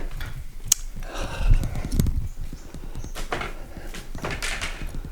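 Footsteps on a soaked floor, irregular knocks and scuffs, with a heavier thud about a second and a half in.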